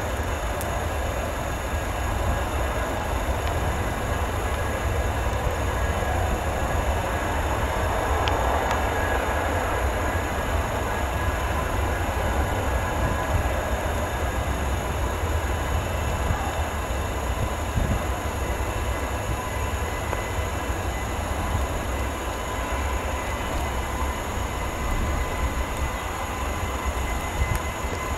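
Airbus A300 freighter's twin turbofan engines running at taxi power: a steady jet whine over a continuous low rumble.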